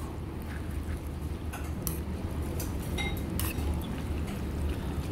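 Scattered light clinks and taps of dishes and utensils, a few sharp ones around two and three seconds in, over a steady low hum.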